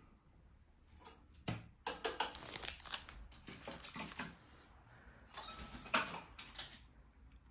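Eurasian jay hopping about a hard tabletop, its feet and claws clicking in irregular clusters of light taps, the loudest a little before the end.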